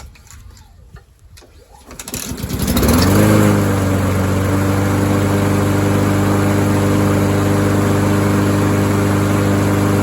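Honda engine of a Toro Recycler lawn mower pull-started, catching on the first light pull about two seconds in. It briefly revs up, then settles and runs steadily at a constant speed.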